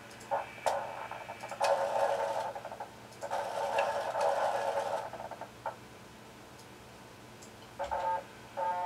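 Linear servo motor axis running a sensorless hard-stop homing sequence: two stretches of buzzing travel noise as the carriage moves along its rail, about two seconds in and again from about three to five seconds, then two short servo buzzes near the end. A couple of sharp clicks come just before the first movement.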